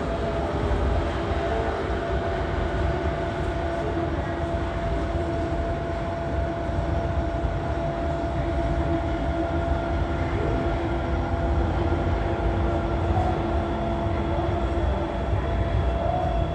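Subway station escalator running with a steady low rumble and a constant thin whine from its drive and moving steps.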